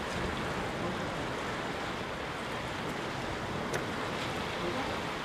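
Steady wash of sea surf against a rocky shore, with one faint click a little under four seconds in.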